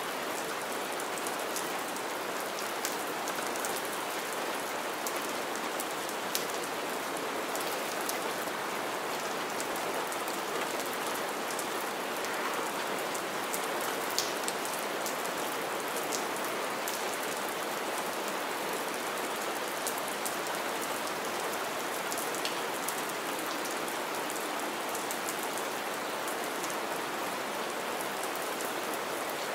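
Steady rain falling on wet ground and shallow puddles, an even hiss dotted with the sharp ticks of single drops splashing close by.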